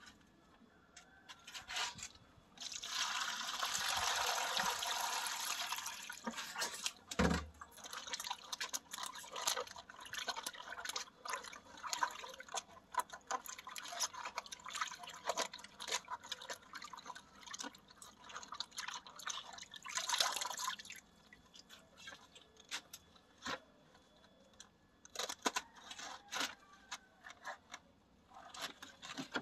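Water pouring for a few seconds, a dull thump, then hands sloshing and rubbing cabbage leaves in a plastic basin of water, with splashes and drips; a second short pour about twenty seconds in.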